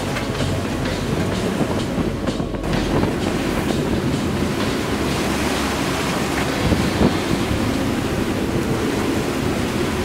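Wind buffeting the microphone and rough sea rushing past a sailboat under way in big waves: a steady, loud rumble and hiss, with a single knock about seven seconds in.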